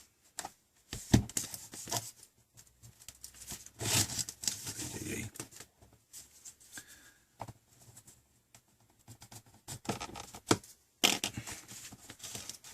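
Pry tool and fingers working the snap-fit back housing off a Samsung Galaxy Tab 7-inch tablet: irregular clicks and scraping as the plastic clips release.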